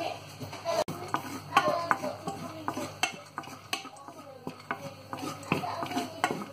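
Wooden spatula stirring pine nuts around a nonstick pan, scraping and knocking against it in irregular light clicks.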